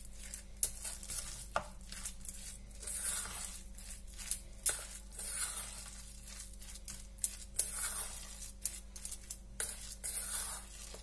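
A steel spoon stirs and mashes thick ground pea paste in a stainless steel bowl. It scrapes around the bowl and clinks against its sides in irregular sharp clicks.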